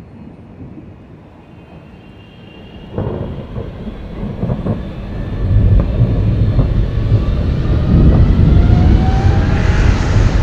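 Jet aircraft passing low overhead: a deep rumble that starts abruptly about three seconds in and grows steadily louder, with rising engine whines over it.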